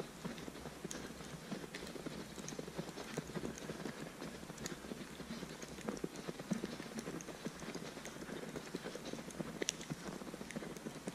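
Footsteps crunching through snow, a continuous irregular crunch, with a few sharp clicks mixed in.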